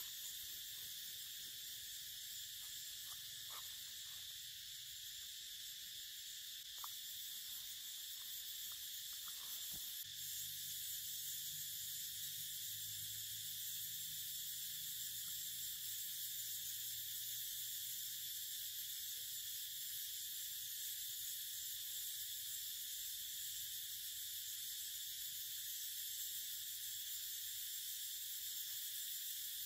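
Steady, unbroken high-pitched insect chorus of forest cicadas or crickets. A few faint rustles and clicks come in the first ten seconds, and a faint low hum joins from about ten seconds in.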